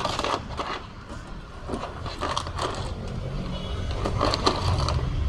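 A key scraping and clicking as it is worked in the lock of an electric bicycle's floor deck, to open the battery compartment beneath. A steady low rumble runs underneath, a little louder near the end.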